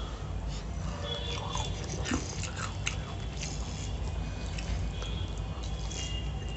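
Close-up mouth sounds of a person biting and chewing fried chicken: short, irregular wet clicks and smacks over a steady low hum.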